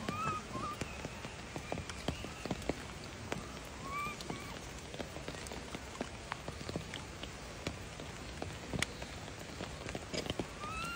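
Macaque giving short, high, rising-and-falling coos: a couple right at the start, one about four seconds in and another at the very end. Many scattered light clicks and rustles run underneath.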